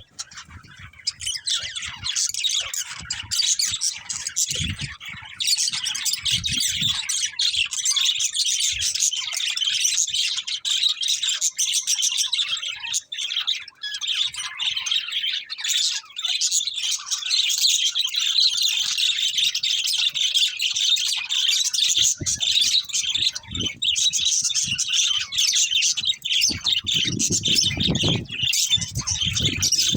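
Budgerigars chirping and warbling in a continuous, busy chatter. Low rumbling sounds join in during the last several seconds.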